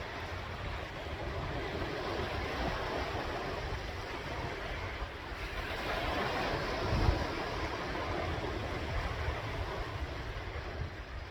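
Sea waves breaking and washing in, swelling about two seconds in and again around six to seven seconds, with low wind rumble on the microphone.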